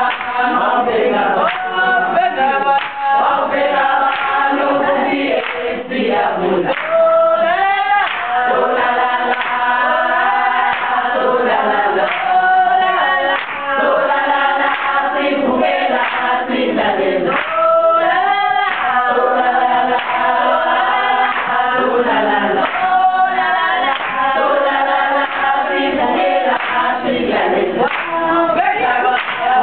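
A group of women singing together, many voices at once, with hand clapping.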